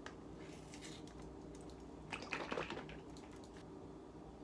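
Small cardboard carton of heavy cream being handled and opened at its spout: a light click at the start, then a faint, short crackling rustle about two seconds in.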